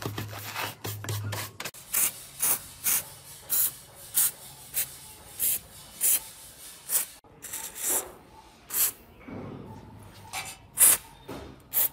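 Short abrasive rubbing strokes by hand, about two a second, as rust is worked off a part of the old meat mincer. A low hum runs under them for the first second and a half, then stops.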